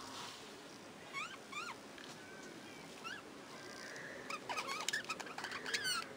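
Budgerigar flock chirping, short calls that sweep up and down in pitch: a few scattered ones, then a busier, louder burst of chatter near the end.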